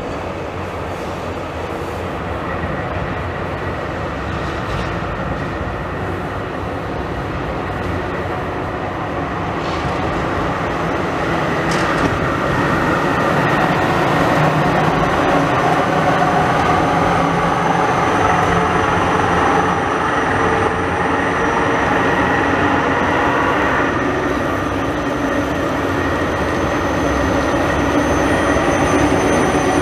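Electric street trams running on the rails below: a steady rumble of wheels on track with a high whine, growing louder about twelve seconds in as a long articulated tram passes close.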